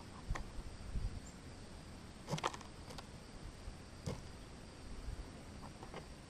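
Mourning dove pecking sunflower seeds in a feeder tray: scattered sharp clicks of its beak on the seeds, a quick run of several about two and a half seconds in, then single taps, over a faint steady background hiss.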